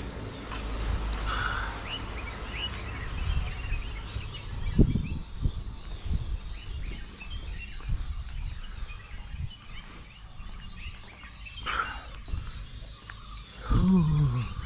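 Many small birds chirping and calling in the background of a dawn chorus, over a low steady rumble. A few low knocks stand out, the loudest about five seconds in.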